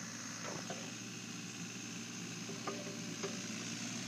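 Takeuchi TB125 mini excavator's diesel engine running steadily while the machine works, with a few light knocks from the machine, two about half a second in and two more near the end.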